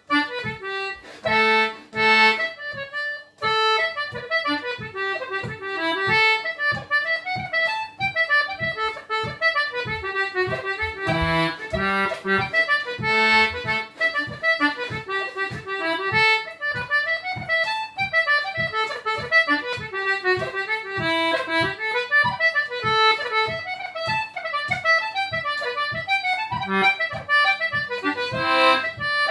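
Concertina playing a reel at normal speed: a couple of short chords near the start, then a quick, continuous run of melody notes.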